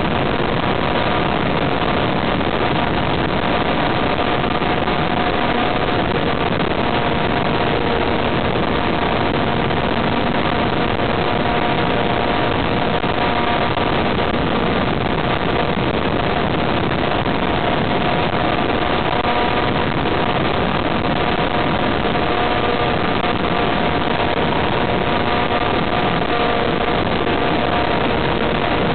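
Radio-controlled model airplane in flight, heard through its onboard camera: a steady rush of airflow with a constant multi-tone whine from the motor and propeller.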